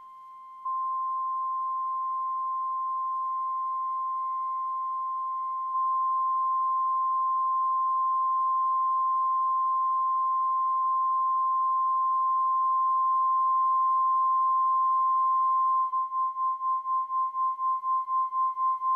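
A steady, pure high tone near 1 kHz, held unbroken and stepping up in loudness twice, then pulsing about four times a second near the end.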